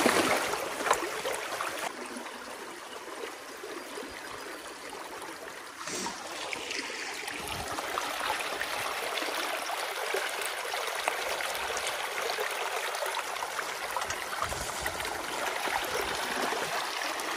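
Water rushing through a breach torn in a beaver dam, a steady flowing rush. In the first second, louder splashing as a rake churns the water at the gap.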